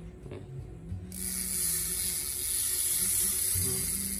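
Shimano 3000-size spinning reel being cranked by hand, giving a steady, high whirring that starts about a second in. The reel is turning normally.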